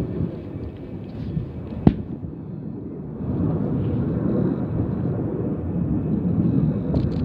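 Low rumble of a distant military jet, swelling louder about three seconds in, with a single sharp click about two seconds in.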